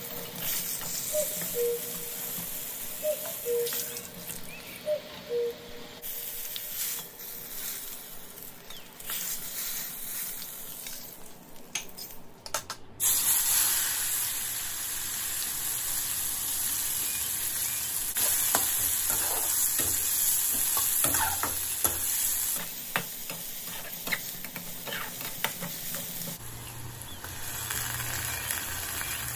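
Oil sizzling in a frying pan as pointed gourds and then chopped onions fry, with a spatula scraping and stirring. About halfway through, the sizzle suddenly becomes louder and fuller, with onions in the oil.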